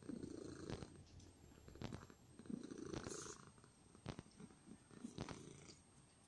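Domestic cat purring close to the microphone, in slow waves that swell and fade with each breath, with soft ticks about once a second.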